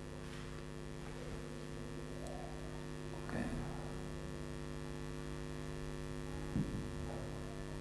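Steady electrical mains hum, a low buzz with a stack of even overtones. A couple of faint brief bumps come about three and six and a half seconds in.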